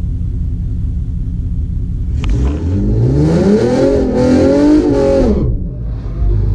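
Car engine running low, then about two seconds in revving hard with a steeply rising pitch, holding high for about two seconds and dropping off near the end.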